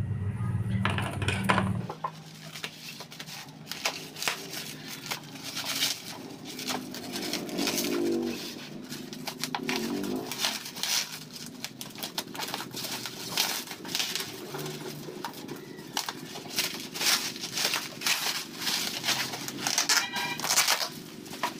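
Black bubble-wrap packaging being snipped with scissors and pulled off a box. The plastic crinkles and crackles in quick, irregular bursts.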